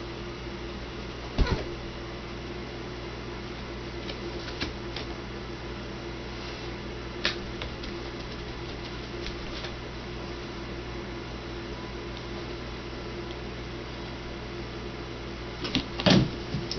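Dull thumps and light knocks of a big cat and a kitten wrestling and jumping about on a carpeted cat tree, over a steady background hum. A loud thump comes about a second and a half in, another around seven seconds, and a cluster of knocks near the end.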